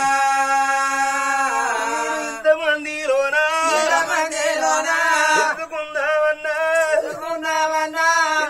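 Male voice singing in Telugu Oggu Katha folk-ballad style. A long held note slides down just under two seconds in into a wavering, ornamented melodic line.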